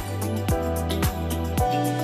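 Background music with a steady beat: a low kick drum about twice a second over sustained bass and melody.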